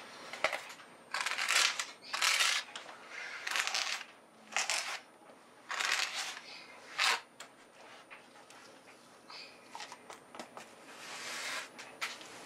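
Metal putty knife scraping and spreading wet DAP cement across a flat board, in a run of short scraping strokes about a second apart, then softer clicks and one longer stroke near the end.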